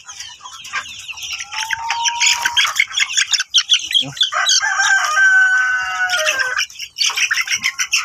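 A flock of month-old chicks peeping and cheeping rapidly and continuously as they are grabbed by hand. About four and a half seconds in, one drawn-out call lasts around two seconds.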